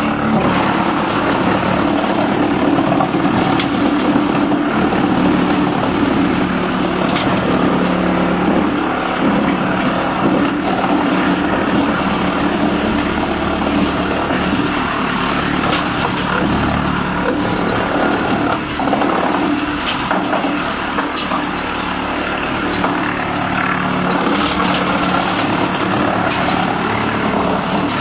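Large wood chipper running steadily, a loud machine drone with its feed conveyor moving, and a few sharp knocks scattered through it.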